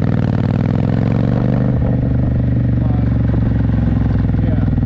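Motorcycle engine running at a steady speed while riding, its pitch holding nearly level.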